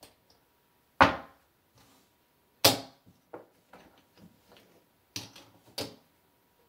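Casino chips clacking as they are picked up, stacked and set down on a craps layout. There are two sharp clacks about a second and a half apart, then a few lighter clicks, and a short run of clicks near the end.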